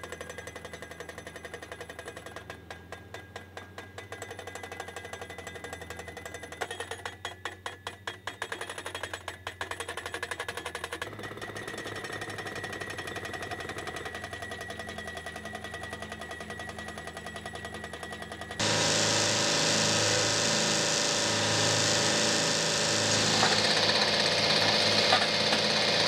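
Hydraulic hammer of a Vermeer PD10 pile driver delivering rapid repeated blows as it drives a steel post into the ground. The hammering gets markedly louder about two-thirds of the way through.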